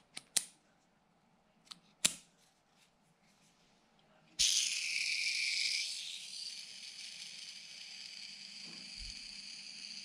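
A few sharp metal clicks, then about four seconds in a small metal spinner is set spinning: a sudden high ringing whir made of several steady tones, loudest at first and then dying down to a steadier, quieter whir.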